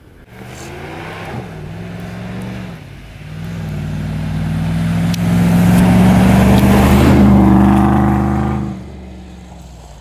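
Ram 2500 Power Wagon's 6.4-litre HEMI V8 pulling the truck along a snowy road, growing louder as the truck comes close, with tyres hissing through the snow. It is loudest about five to eight seconds in, then drops off sharply.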